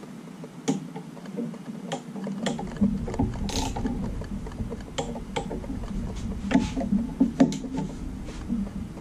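Ratcheting torque wrench tightening oil pan bolts on a Jeep 4.0 inline-six, clicking in short irregular runs. Some clicks are sharper, the wrench clicking over as a bolt reaches its set torque of 11 foot-pounds.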